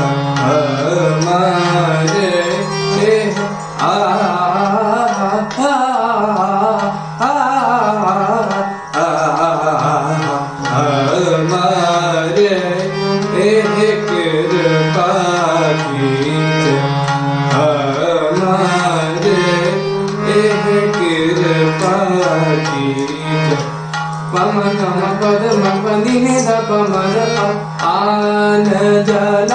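Indian classical-style vocal music: a voice sings a winding, ornamented melody over a steady low drone, with tabla accompaniment.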